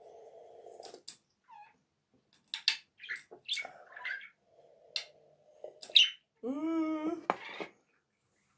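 Milk being drunk from a glass: gulps and swallows with wet mouth clicks. About six and a half seconds in comes a short voiced sound, about a second long, steady in pitch.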